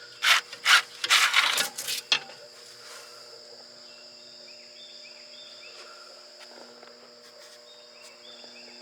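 Clattering and rattling of the diesel engine's air cleaner housing coming apart and the filter being pulled out, for about two seconds. After that there is a faint steady chirring of insects.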